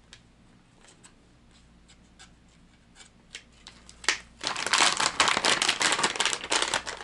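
Plastic lure packaging being handled: light clicks of a plastic clamshell, a sharp snap about four seconds in, then loud crinkling of a plastic lure bag from about four and a half seconds in.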